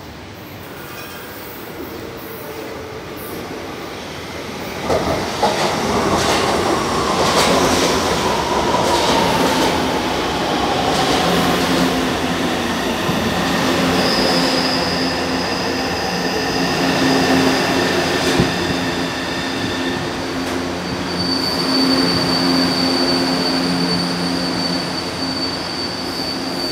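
São Paulo Metro Line 3 electric train pulling in and slowing. Its running noise swells about five seconds in, with a few sharp wheel clacks. A motor whine falls steadily in pitch as it slows, and a high steady squeal sets in about halfway through.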